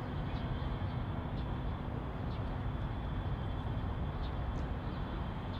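Steady low rumble of outdoor urban ambience, with a faint steady high hum and a scattering of faint short high chirps.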